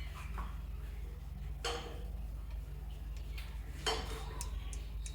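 A few light metallic clinks and knocks, two of them clearer, about a second and a half in and about four seconds in, over a steady low hum.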